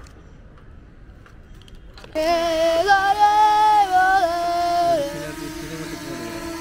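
Background music with a singing voice holding long notes, which starts abruptly about two seconds in after a quieter stretch.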